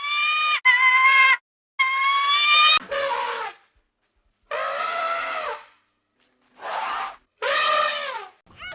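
An animal's repeated cries: three steady, pitched calls of about a second each, then rougher, breathier calls whose pitch falls away at the end.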